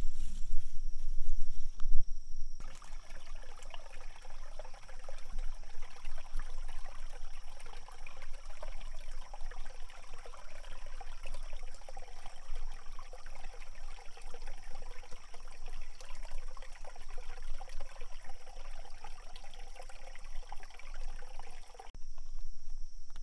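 Small mountain stream trickling and babbling over rocks, starting abruptly a few seconds in and stopping shortly before the end.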